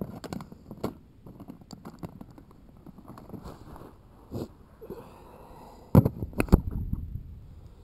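Camera bumping and scraping as it hangs on a string down a well: rubbing and scattered light clicks, then two loud knocks about half a second apart near the end, followed by a low rumble.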